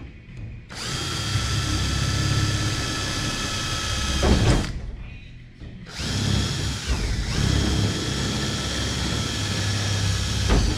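A DeWalt cordless drill drilling rivet holes through a race car's deck panel, running in two long stretches of steady motor whine with a short pause between them.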